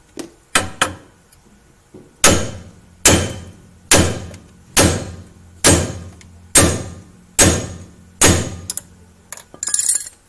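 Hammer blows on the steel suspension arm and ball joint while the worn ball joint is knocked loose. A few light taps come first, then eight heavy, evenly paced strikes a little under a second apart, each ringing briefly, and a quick flurry of knocks near the end.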